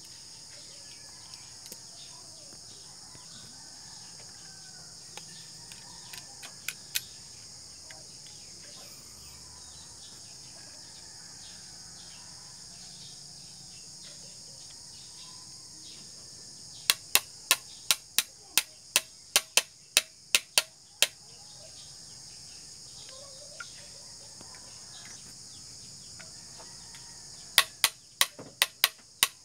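Sharp taps of a screwdriver handle knocking a pin into a speargun's metal trigger mechanism. A few light taps come early, then a quick run of about a dozen taps, and another run starts near the end. A steady high insect buzz goes on underneath.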